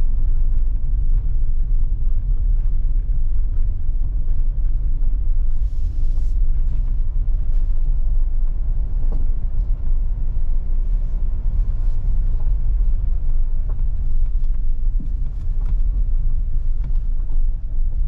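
Cabin rumble of a Daihatsu Hijet Cargo kei van driving on a gravel and dirt track: its small three-cylinder engine and tyres make a steady, loud, low rumble, with scattered ticks from the road surface.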